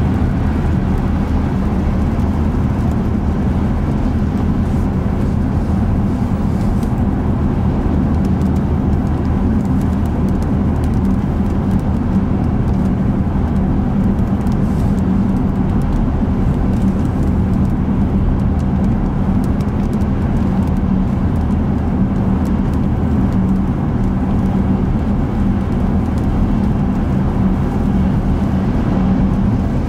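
Steady road noise of a car driving at motorway speed: an even, unbroken low drone of tyres and engine.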